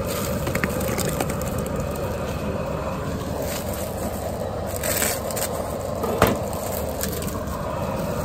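Propane turkey-fryer burner running steadily at full heat under a pot of water at a boil. A few knocks and a splash are heard as potatoes are dropped into the pot, the loudest knock about six seconds in.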